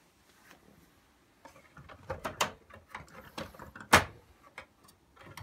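Plastic housing of a Victor Clavia boombox being handled and pressed together during reassembly: scattered clicks and knocks, with one sharp, loud click about four seconds in.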